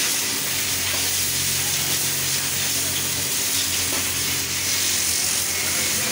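JT862 automatic back-pocket setting machine running: a steady hiss over a low machine hum.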